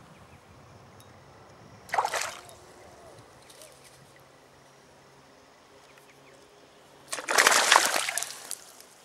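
Hooked Australian bass splashing at the surface while being fought: a short splash about two seconds in, then a longer, louder thrashing splash near the end that throws up spray.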